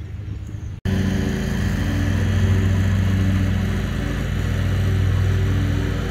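A loud, steady low drone from the cruise ship, a deep hum with a few evenly stacked tones and no change in pitch; it starts suddenly about a second in.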